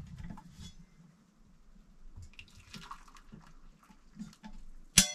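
Nearly boiling water poured quietly from a kettle into a foil-lined pan of seasoned rice, among faint clinks of handling. About five seconds in comes a single sharp metallic clank that rings briefly.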